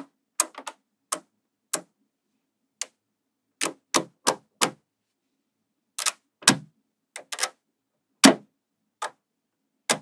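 Slabs of small magnetic balls clicking and snapping together as they are pressed onto a larger magnetic-ball model. There are about eighteen sharp clicks at irregular intervals, the loudest about eight seconds in.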